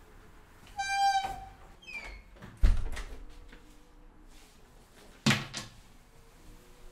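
Door sounds in a quiet room: a short, steady high tone about a second in, then a heavy thump, the loudest sound, and a few seconds later another sharp knock.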